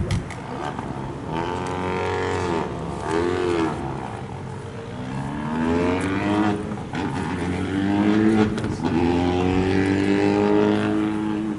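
Rally car engine revving: two short rises and falls in pitch, then accelerating hard through the gears, the pitch climbing in steps with shifts about 7 and 9 seconds in.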